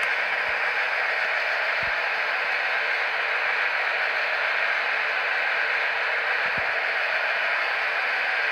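Steady, even hiss with a few faint ticks.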